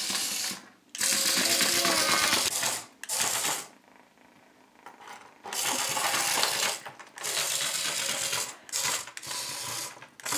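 Small electric motor and plastic gears of a radio-controlled toy caterpillar whirring and rattling as it crawls, driven in stop-start runs of a second or two, with a pause of about a second and a half in the middle.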